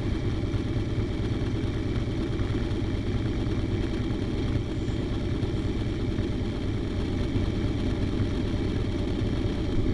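Harley-Davidson Sportster's air-cooled V-twin engine idling steadily.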